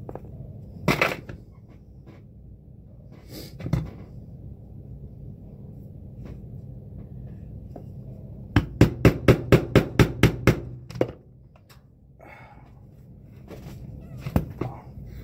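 Yellow mallet striking a hand punch through a leather boot sole, punching stitch holes for hand stitching: a quick, even run of about ten blows a little over halfway through, with a few single knocks before and after.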